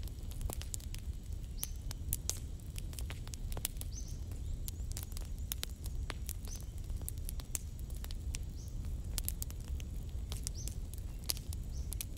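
Irregular sharp crackles and pops from a wood fire burning in a clay stove under a pan of frying tomatoes, over a low steady rumble.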